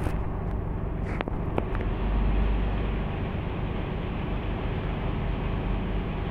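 Large wheel loader's diesel engine running steadily while the loader digs into a stockpile, with a couple of sharp clicks a little over a second in.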